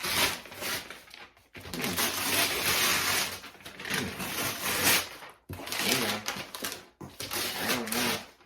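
A cardboard box and its packaging being handled and opened, in several noisy bursts of rustling separated by brief pauses.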